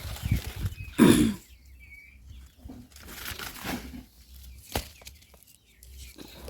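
A short animal call that falls in pitch about a second in, among quieter scattered knocks and clatter, with a sharp click later on.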